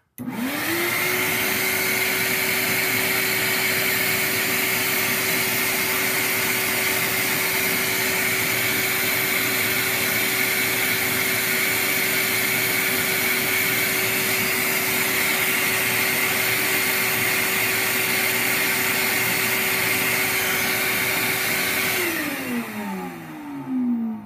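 BKM 4 clarinet reed profiling machine running while it cuts a reed blank: a loud, steady motor hum and whine over a wide hiss, starting at once and holding even. Near the end it switches off and spins down with a falling pitch over about two seconds.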